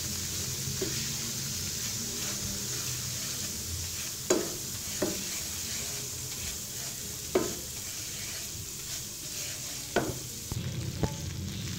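Semolina sizzling in hot cooking oil in a frying pan while a wooden spoon stirs it, roasting it on low flame toward light brown. A few sharper scrapes of the spoon against the pan stand out, about four times.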